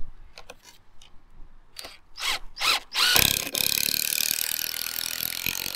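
A few sharp knocks, then a power driver running for almost three seconds, driving a screw through a timber noggin into a deck joist.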